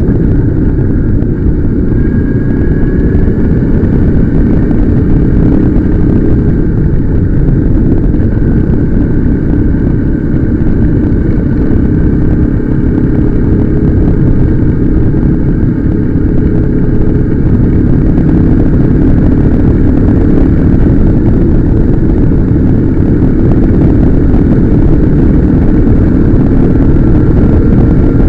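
Motorcycle riding at a steady speed: a dense, constant rumble with a faint steady whine above it.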